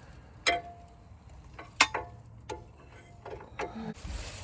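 Metal tools and parts clanking: about six sharp metallic strikes spread over a few seconds, the first ringing briefly. A steady hiss starts near the end.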